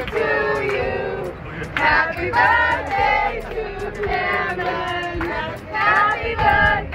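A group of people singing together, mostly high women's voices holding long, wavering notes.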